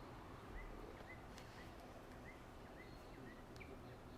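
Near silence with a bird chirping faintly, short chirps repeated two or three times a second.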